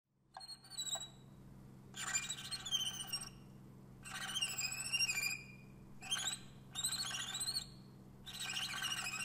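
Jungle ambience sound effect: repeated bursts of warbling, chirping bird calls, each about a second long, over a steady low hum.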